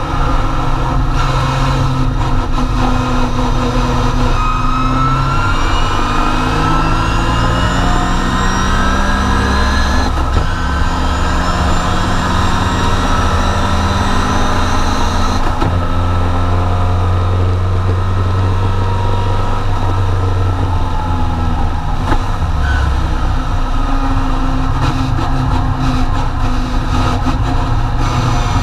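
Triumph TR4 race car's four-cylinder engine running hard under acceleration, heard from inside the cockpit. Its pitch climbs through a long pull, breaks about ten seconds in and again around fifteen seconds, then settles into lower, steadier running.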